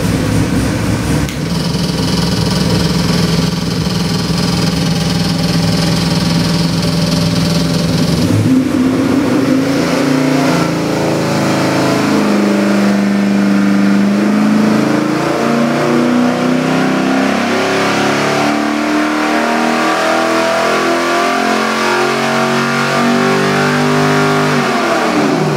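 Chevrolet LS7 427 cubic-inch V8 crate engine with Borla stack injection running on an engine dyno. It runs steadily for about eight seconds, then is pulled under load, rising in pitch as it climbs to about 6,000 rpm, and the revs fall away sharply near the end.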